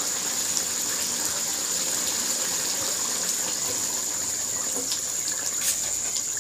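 Steady rushing hiss from a kadai of chicken curry cooking on a gas stove, with a thin high whine over it and a few faint ticks.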